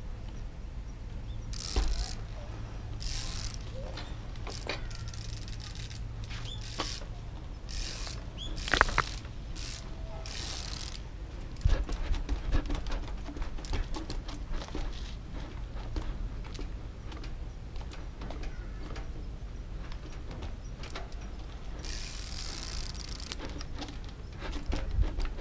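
Trials bike being balanced and hopped along a narrow concrete ledge: ratcheting clicks from the rear hub, tyre scuffs and a few sharp knocks, over a steady low rumble.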